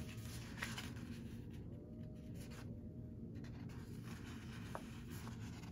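Faint rustling and rubbing of paper as the pages of a sticker book are handled and lifted, with a few soft clicks over a low steady hum.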